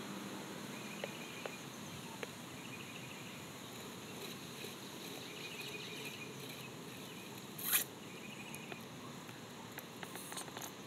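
Quiet outdoor background with faint high chirps now and then and a few light clicks. A brief rustle stands out about eight seconds in, and quick light ticks come near the end.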